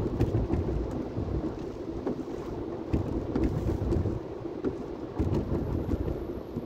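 Road noise heard inside a moving car on a rain-wet highway: a steady low rumble of tyres and wind, with irregular low thumps.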